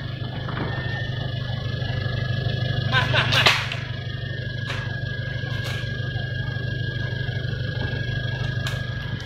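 A 4x4's engine runs as a steady low drone while crawling over a rough dirt track, with knocks and rattles from the bumps. The loudest cluster of knocks comes about three seconds in, and a thin steady high tone runs under it all.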